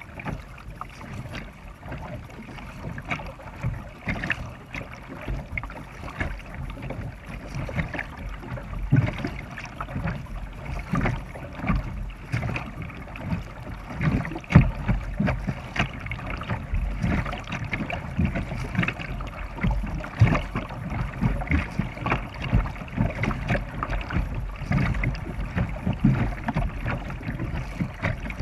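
Double-bladed kayak paddle dipping and pulling through river water, stroke after stroke, with splashing and water sloshing along the kayak's hull.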